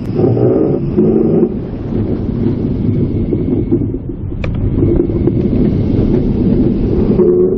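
Intamin sit-down steel roller coaster train running along its track, heard from on board: a steady rumble of wheels on the rails with wind rushing past. A stepped whining tone comes in during the first second and a half and again near the end, with a single sharp click about halfway.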